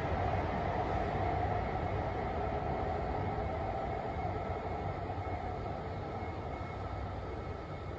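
Steady rumble of a train at a station platform, slowly fading away.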